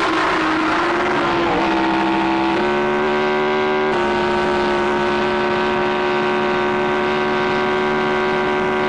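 1960s Formula One racing car engine running at high revs, a steady sustained note that steps up in pitch a few times.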